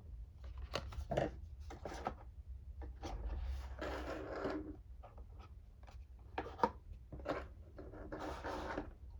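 Hands handling products and packaging on a surface: a string of light taps and clicks, with two longer rustling scrapes, one about three seconds in and one near the end.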